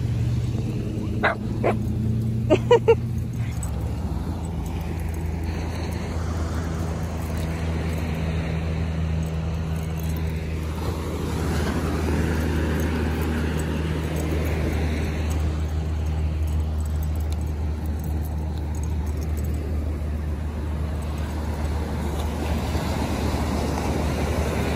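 Short dog barks and yips, four or five of them within the first three seconds, over the steady low drone of a car, which runs on unchanged.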